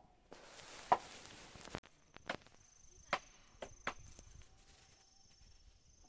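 A hiss with a sharp knock in it that stops suddenly, then a few sharp clicks and knocks. From about two seconds in, a faint high insect trill comes and goes.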